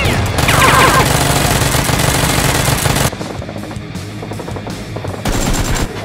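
Automatic-gunfire sound effect: a sustained burst of about three seconds, with a few falling whines near its start, then a shorter burst near the end, over background music.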